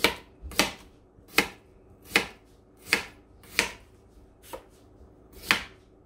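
Kitchen knife slicing fresh ginger on a plastic cutting board: a sharp knock of the blade hitting the board with each cut, about eight slow, even cuts.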